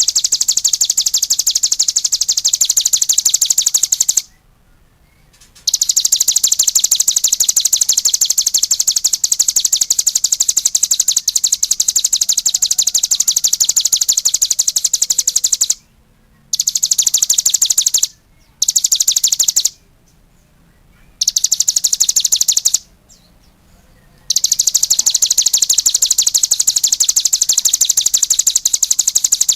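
Cigun songbird singing in full song: a long, very fast high trill of rapidly repeated notes, in long bouts broken by a few short pauses.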